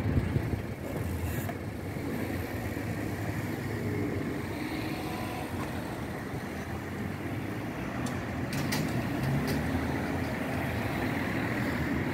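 Cars pulling across a railway level crossing one after another, engines and tyres giving a steady rumble, with a few light clicks about eight to nine seconds in.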